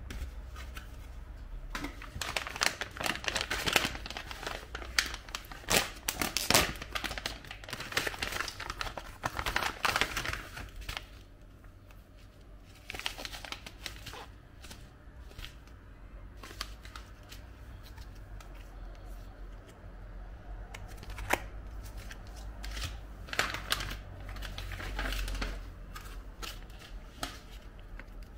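Crinkly plastic food packaging being handled and torn open, with irregular crackling and rustling. It is busiest in the first ten seconds and again about twenty-three seconds in.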